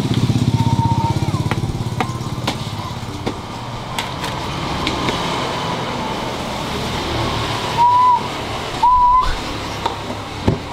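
A motorbike engine running close by at the start and fading away over the next few seconds, with light clicks and rustles of handling. Several short whistled notes come near the end.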